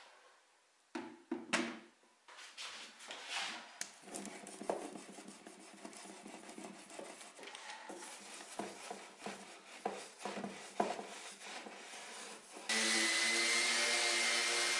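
Irregular rubbing and scraping with scattered knocks as a clothes iron is pushed over freshly laid wood veneer to set the glue. Near the end a random orbital sander starts on the veneered top and runs steadily, much louder, with a steady hum and a high whine.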